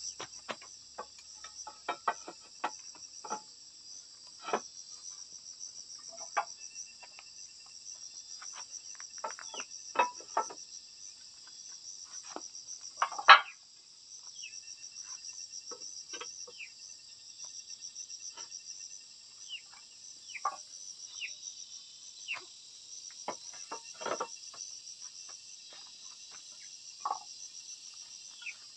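Clay roof tiles clicking and knocking against each other and the bamboo battens as they are handled and laid, with one louder clack about thirteen seconds in. A steady high chirring of insects runs underneath.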